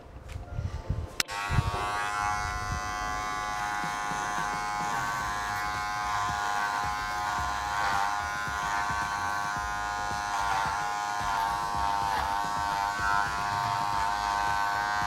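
Electric hair clippers start about a second in and run with a steady buzz while cutting through long hair to take out the bulk. The motor's pitch dips briefly a few times as the blades bite into the hair.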